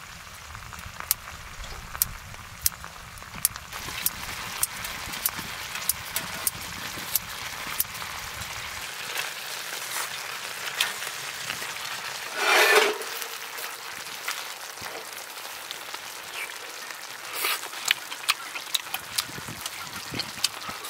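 Dakgalbi sizzling in a cast-iron skillet over a wood stove, with a steady hiss and many sharp pops and crackles. A louder burst of noise comes about halfway through.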